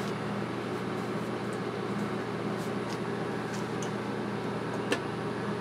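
Steady mechanical hum, like a fan or air conditioner running, with a few faint ticks and a light click about five seconds in.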